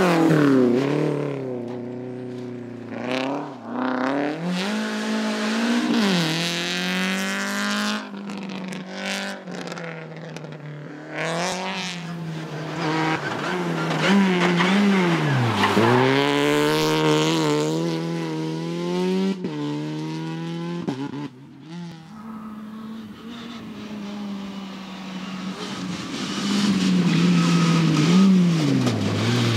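Rally car engine revving hard through the gears. The pitch climbs and drops back at each shift, falls away under braking, then builds again. The sound eases off for a few seconds in the second half and grows louder again near the end.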